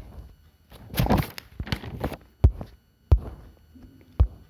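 Four sharp thumps or knocks, spread through the stretch, with a short burst of rustling about a second in.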